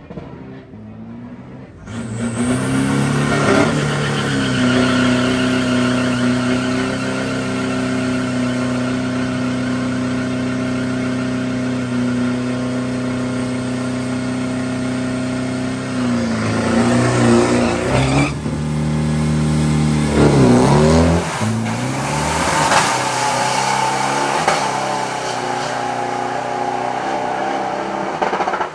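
Modified pickup truck's engine held at high revs during a burnout, the rear tyre spinning in smoke, with the pitch steady for many seconds. It then revs up and down a few times and accelerates hard off the line down the drag strip.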